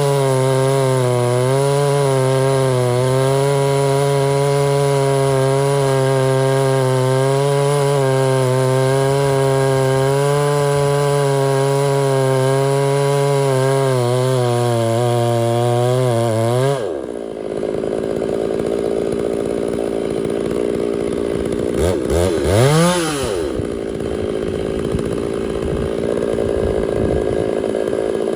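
Chainsaw running steadily at full throttle, cutting through white oak. About seventeen seconds in the throttle is released and it drops suddenly to idle. A few seconds later it is revved up and back down once, then idles on.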